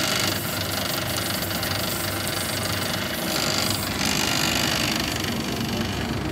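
Motorized sugarcane peeling machine running while a stalk of sugarcane is pushed through it, its blades scraping off the rind; a loud, steady mechanical noise.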